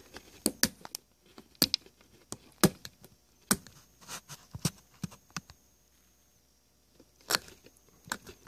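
X-Acto hobby knife blade scraping and picking hardened belt goo off a turntable's brass DC motor pulley: irregular sharp scratches and clicks, with a short pause about two-thirds of the way in. The goo is the residue of a degraded rubber drive belt.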